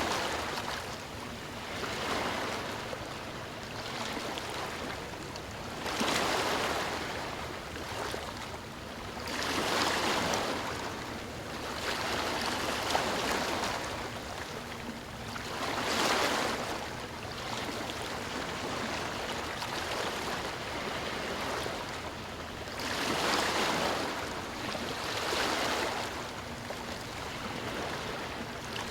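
Ocean waves breaking and washing on a shore, one surge of surf every few seconds over a steady hiss of water.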